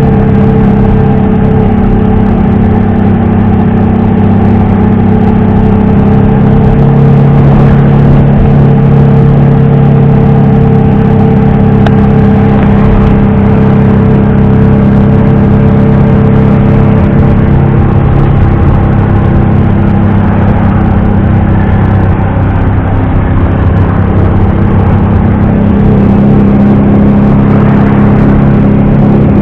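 ZAZ-968M Zaporozhets' air-cooled V4 engine running steadily while the car is driven, with only slight changes in pitch.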